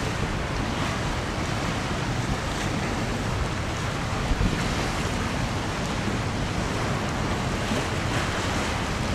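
Wind buffeting the microphone over choppy river water washing against itself, with a louder gust about four seconds in.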